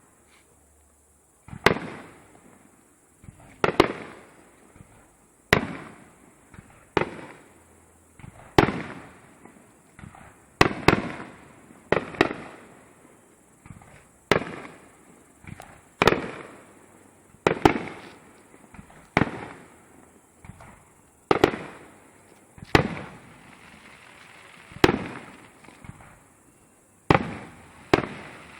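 Aerial firework shells bursting: about twenty sharp bangs, one every second or two, each trailing off in a short echo.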